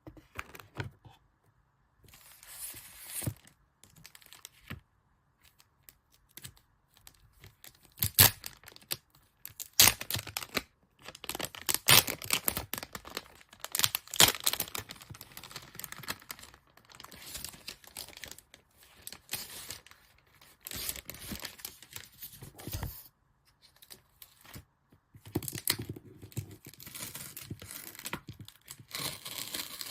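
Packaging being torn open and crinkled by hand: irregular rustling and tearing in stops and starts, with a few sharp, louder clicks.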